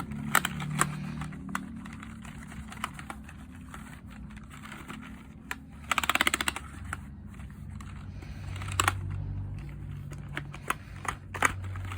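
Computer keyboard keys clicking and rattling as a cloth is wiped across them. The clicks are scattered, with a quick rattling run of about ten clicks around six seconds in.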